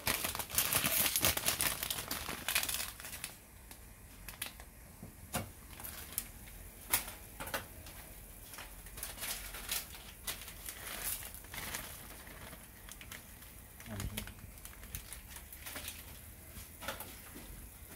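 Pot of instant-ramen broth boiling, bubbling and popping with irregular crackles. It is densest and loudest for the first three seconds, then settles into scattered sharp pops as the noodle block sits in the simmering broth.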